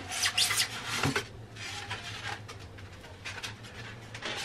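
Cardboard and plastic packaging rustling and scraping as a boxed coffee machine is unpacked by hand. The handling is loudest in the first second, with a sharp knock about a second in, then goes on as softer rustles.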